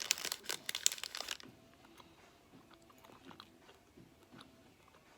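Close-up chewing of a gummy fruit snack: wet, crackly mouth noises, loudest for about the first second and a half, then softer scattered smacks and clicks.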